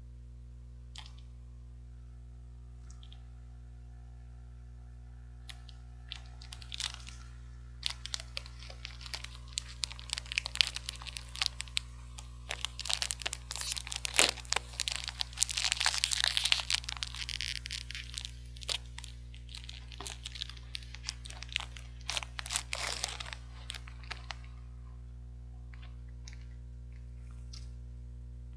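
Chocolate bar wrapper being crinkled and torn open by hand: dense crackling that builds through the middle and thins out near the end, over a steady low hum.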